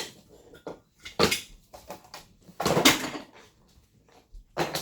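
Three short bursts of clatter and knocking from objects being handled and set down. The middle burst is the loudest.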